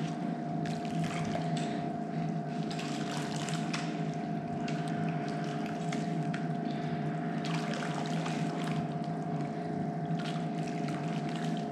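Hot water in a turkey-fryer pot sloshing and splashing as a scalded chicken is dunked in and out, over a steady hum with a faint whine.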